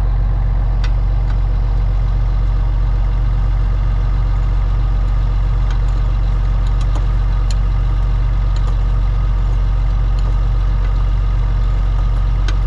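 An engine idling steadily, with a few light metallic clicks as a spanner works on wiring terminals.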